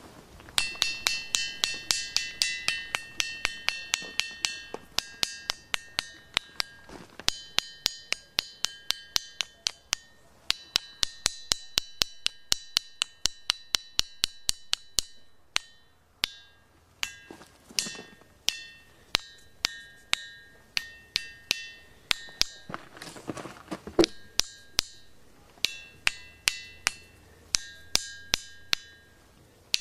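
A ringing limestone block struck over and over, about three strikes a second, each hit giving a clear, melodious ring. In the middle stretch a run of strikes rings much less.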